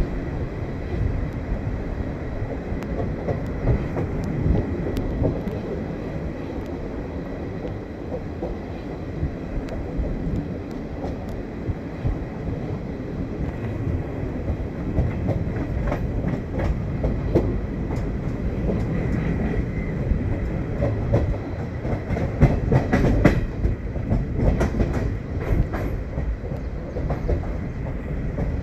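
Passenger coach wheels running fast on the rails, heard through an open coach doorway: a steady rumble with sharp clickety-clack over the track, the clacks coming thicker in the second half.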